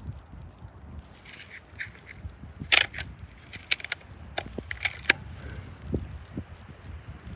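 A cluster of sharp clicks and knocks from handling a Hatsan FlashPup PCP air rifle between shots, the loudest a little under three seconds in.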